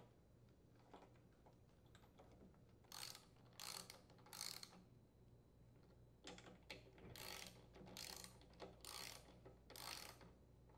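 A socket ratchet tightening the carburetor mounting bolts: short runs of pawl clicks on each back-swing of the handle. Three runs come about three seconds in, then after a pause a longer series of about eight, roughly one every half to two-thirds of a second.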